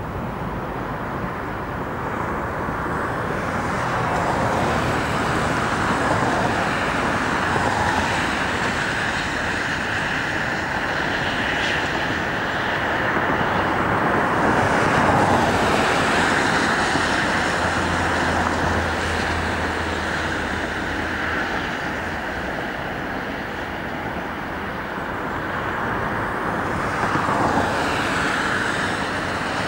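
Road traffic noise: a steady hum of passing vehicles that swells and fades several times.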